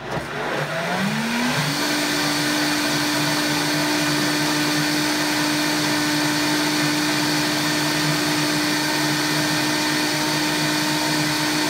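Countertop blender motor blending thick corn puree with a little heavy cream: it spins up, rising in pitch over the first couple of seconds, then runs at a steady pitch and begins to slow at the very end.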